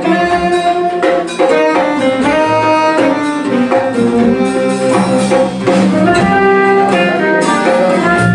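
Live jazz-fusion band playing: horns carry a melody of held notes over guitar and piano.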